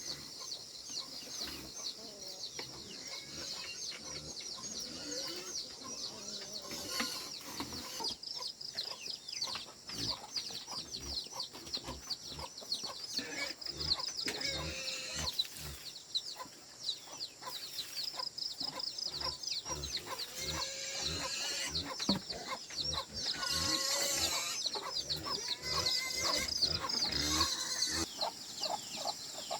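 Chickens clucking over a steady chorus of high, rapid chirping, with louder calls breaking in every few seconds.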